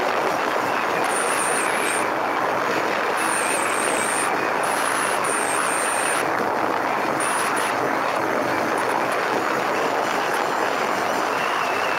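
Motorcycle riding at a steady speed: the engine running evenly under a dense, unbroken rush of wind and road noise.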